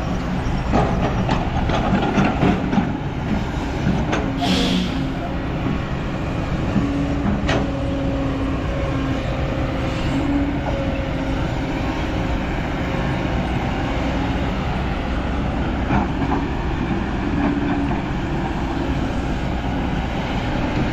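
Heavy diesel machinery running steadily, with a hum that wavers in pitch and a few sharp clanks, the sound of dump trucks and excavators working while soil is tipped.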